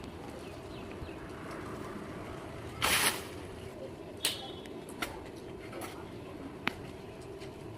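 Sharp, separate strikes of a cutting blade on wood during tree-cutting work. The loudest, longest knock comes about three seconds in, followed by four lighter single strikes at irregular spacing, over a steady background noise.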